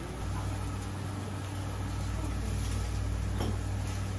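Steady low mechanical hum with a faint hiss over it, the running of the exhaust ventilation above a teppan griddle. The hum sets in just after the start.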